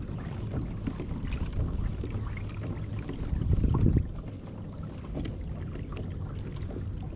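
Low wind rumble on the microphone of a kayak on open water, with scattered light knocks from the boat; a louder low rush comes about three and a half seconds in.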